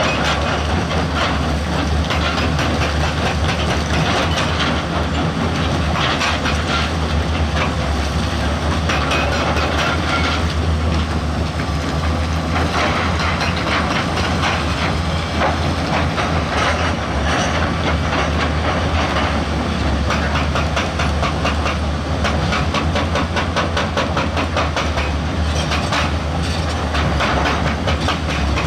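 Heavy earthmoving machine at work: a steady low diesel engine drone under continuous metallic clanking and rattling.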